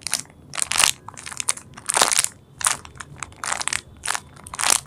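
Plastic packaging crinkling and crackling in repeated irregular bursts as a foam squishy is handled and squeezed in its bag.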